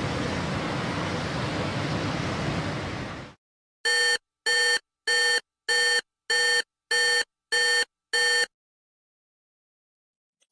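Sound-effect clip: a steady hiss of static-like noise that stops about three seconds in. Then come eight short electronic beeps, evenly spaced a little under two a second, like a phone or alarm ringing.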